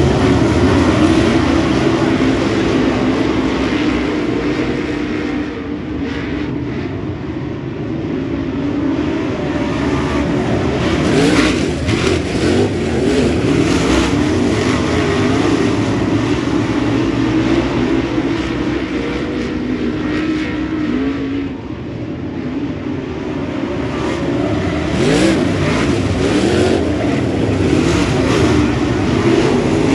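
A field of dirt super late model race cars running hard, their V8 engines overlapping and revving up and down through the turns. The sound swells as the pack sweeps close by, twice, and fades between passes as the cars move away down the track.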